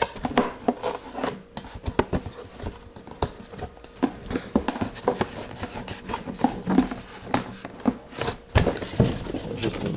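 Hands rummaging in a cardboard box, rustling and handling its contents, with many scattered light clicks and taps.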